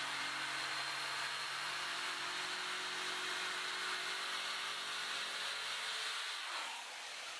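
Corded electric jigsaw cutting a circle out of 9 mm MDF board: a steady saw noise at an even level, easing off slightly near the end as the blade comes out of the cut.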